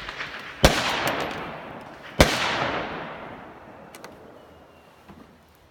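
Two rifle shots about a second and a half apart, each a sharp crack followed by a long fading echo, then a couple of faint clicks near the end.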